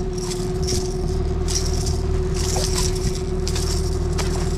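A freshly landed pike thrashing in a landing net in the boat, the lure and net rattling in short irregular bursts. The boat's motor hums steadily underneath.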